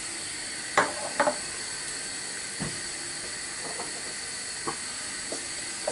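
Steady hiss from a saucepan of butter melting on a gas hob, with a few faint ticks and taps.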